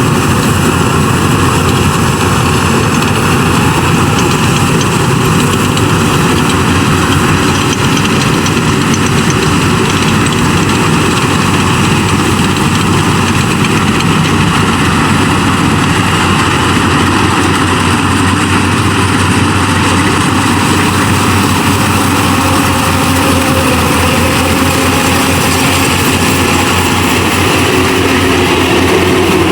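Yanmar AW70V combine harvester running steadily: loud, unchanging engine and machinery noise while harvesting rice.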